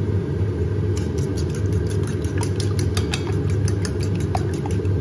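Fork beating eggs in a ceramic bowl: rapid clicking of the metal tines against the bowl, starting about a second in. A steady low rumble runs underneath and is the loudest thing.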